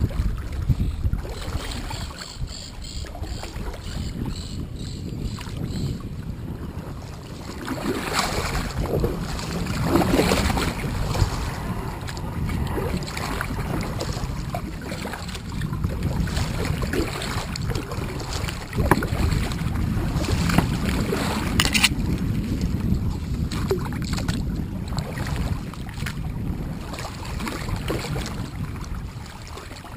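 Water and wind noise from a fishing kayak: uneven low rumbling of wind on the microphone over sloshing water, rising and falling in swells, with a brief sharp hiss about two-thirds of the way through.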